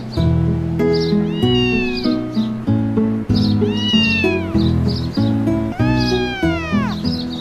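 A cat meowing three times, each meow rising and then falling in pitch and the last one the longest, over background music.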